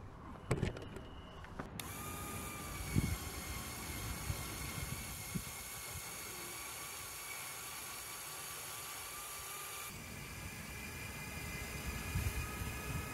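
LEGO Power Functions electric motor and gearing on a Technic crane, running steadily with a high whine, its pitch shifting slightly about ten seconds in. A few knocks and footsteps come just before it starts.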